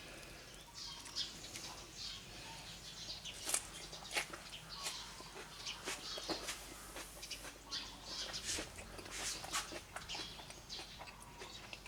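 Quiet eating sounds: scattered small clicks and taps, with chewing and mouth sounds, as a mouthful of steamed tilapia with pickled shallots is eaten.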